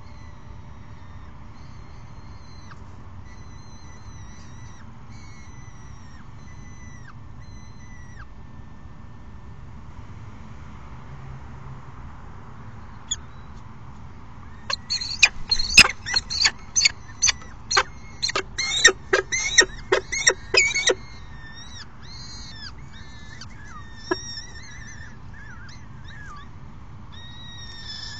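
Peregrine falcons calling at the nest: faint, thin repeated notes at first, then about halfway through a loud run of a dozen or more short, sharp calls lasting some six seconds, followed by softer calls.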